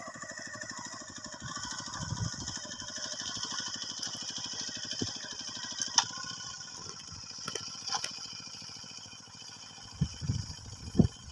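Small engine of an ISEKI PC4 rice transplanter running with an even, rapid pulse, which fades about halfway through. A few sharp clicks come in the middle, and some low thumps near the end.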